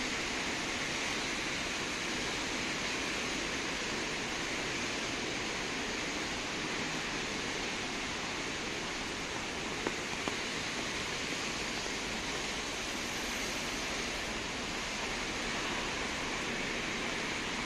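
Steady rain falling on wet paving and leaves, an even hiss.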